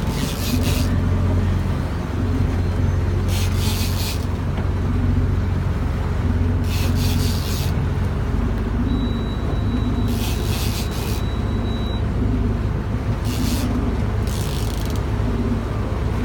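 Fishing boat's engine running steadily with a low drone, with a hiss of water rising briefly every few seconds. A thin high whistle sounds for about three seconds midway.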